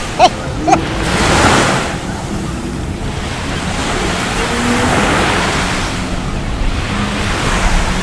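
Small surf washing onto a sandy beach, swelling and ebbing in slow waves, with wind on the microphone. Two short, high-pitched cries stand out near the start.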